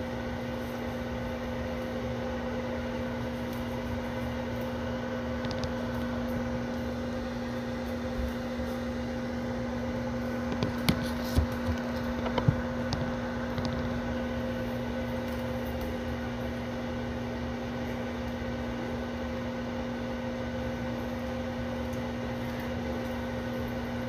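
Microwave oven running with a steady electrical hum, a few sharp clicks about halfway through.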